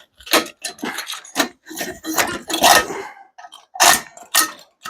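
Microwave scrap parts knocking and clinking together, a run of irregular sharp metal clanks as the magnetron is taken apart.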